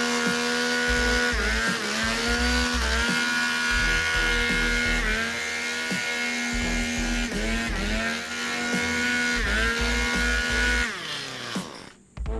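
Handheld leaf blower running hard while blowing grass clippings off a lawn, its pitch dipping and recovering every second or two as the speed is eased off and opened up again. Near the end it winds down and stops.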